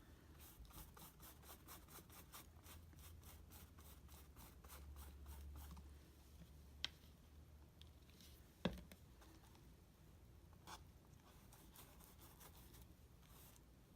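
Faint, quick brush strokes over paper, about three or four a second, as a tissue-paper cut-out is brushed down with matte medium, with two sharp taps in the middle.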